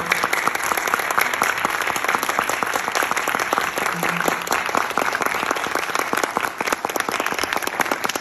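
Audience applauding, a dense, steady clapping that fills the hall.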